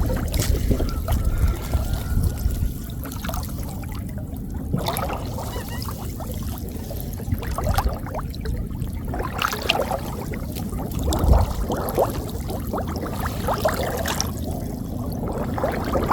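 Water trickling and dripping with irregular small splashes as a gill net is worked out of floodwater.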